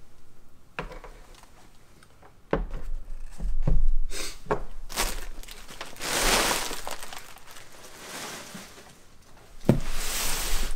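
Packaging being handled: a few knocks and thunks, then long stretches of crinkling and rustling, with a sharp knock just before the last stretch.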